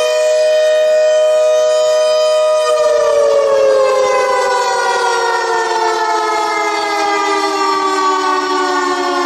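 Warning siren sounding a steady two-note chord, then winding down, both notes sliding slowly lower from about three seconds in.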